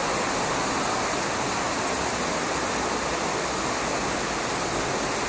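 Dudhsagar waterfall's water falling and rushing, a steady, unbroken roar.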